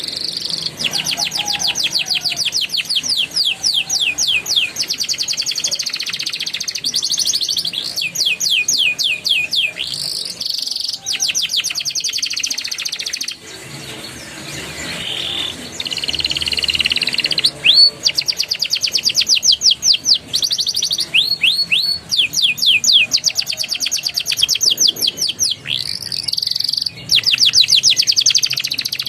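Domestic canary singing a long song of fast trills, each phrase a rapid run of repeated high falling notes, with short breaks between phrases and a brief lull just before the middle.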